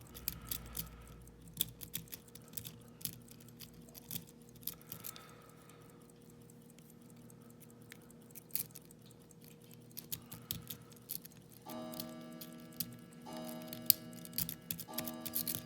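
A lock-pick rake scraping and clicking against the pins inside a Yale railroad switch padlock, an irregular scatter of small metallic ticks. Background music comes in about twelve seconds in.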